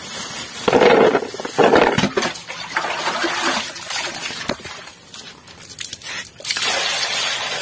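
Pili fruits tipped out of a wet plastic bag into a plastic basin: the bag crinkling and the fruits tumbling and knocking against the basin, with some water splashing. Two loud rushes about a second apart, then scattered knocks, and another longer rush near the end.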